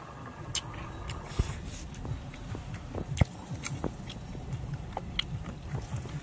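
Eating sounds: grilled fish flesh pulled off the bones by hand and chewed, heard as irregular small clicks and smacks over a low, steady rumble.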